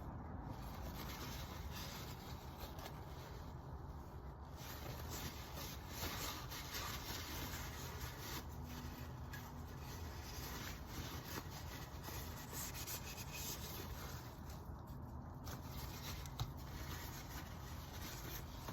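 Rag rubbing and wiping over the oily oil filter housing parts in irregular scrubbing strokes, with short pauses and a single sharp click near the end.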